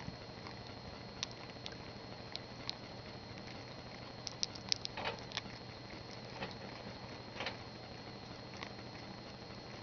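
Guinea pig chewing a piece of banana held on a hand: soft, irregular wet clicks and smacks, busiest a little past the middle, over a faint steady hum.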